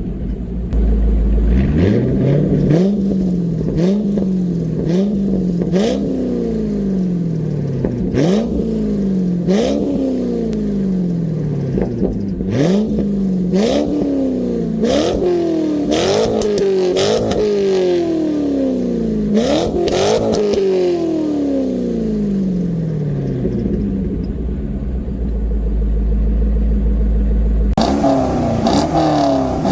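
C5 Corvette Z06's LS6 V8 revving hard through its exhaust again and again. Each rev climbs quickly and falls back more slowly, with sharp cracks scattered among them.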